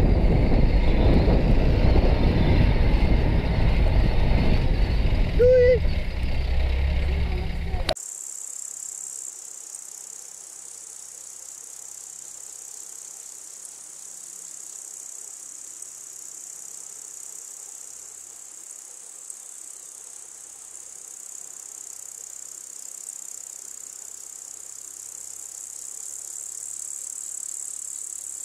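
A loud low rumble that cuts off suddenly about eight seconds in, leaving a steady, high-pitched insect chirring, typical of crickets or grasshoppers, that runs on unbroken.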